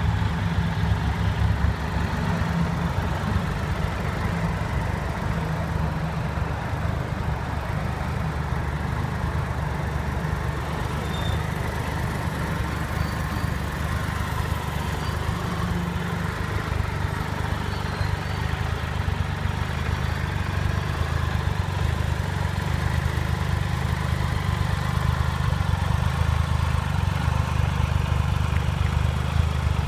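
Triumph Trophy SE's 1215 cc three-cylinder engine idling steadily.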